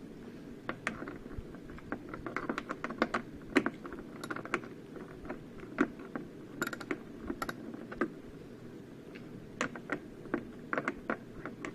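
A socket ratchet clicking in short, irregular strokes, with small metal clinks, as a bolt on a snowblower's cover is backed out.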